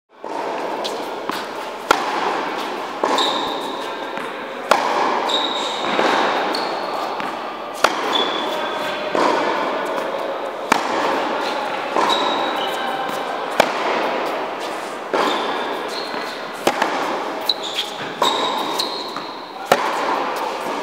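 Tennis rally: a ball struck by racket strings about every one and a half seconds, every other hit louder, each echoing in a large indoor hall.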